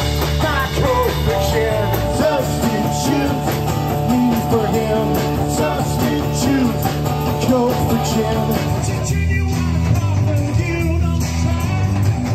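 A live rock band playing: electric guitar, bass guitar and drums, with a man singing lead through most of it.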